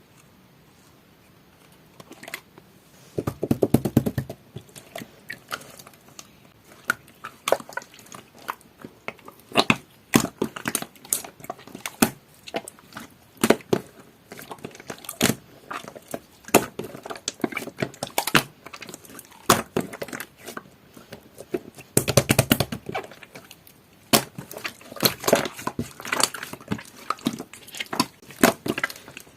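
Jelly-textured slime being squished and pressed by hand, making a string of irregular sticky clicks and pops. Two denser, squelchier stretches come about three seconds in and again about two-thirds of the way through.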